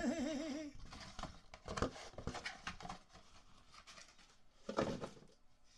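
Packaging of a small parcel being torn open and rustled by hand, in irregular bursts, with a louder rustle about five seconds in.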